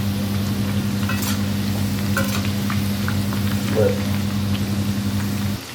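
Food frying in hot oil, a steady sizzle with scattered light clicks, over a constant low hum that cuts off near the end.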